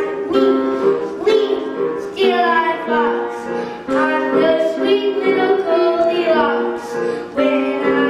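A child singing a song into a microphone over instrumental accompaniment, with sung lines starting about two seconds in.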